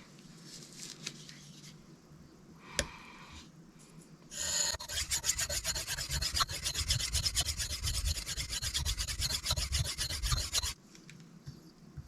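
A knife blade scraped back and forth on a Sharpal 162N 325-grit diamond plate in quick, even strokes, reprofiling the edge to a new angle; the scraping starts about four seconds in and stops abruptly near the end. A single sharp click comes just before it.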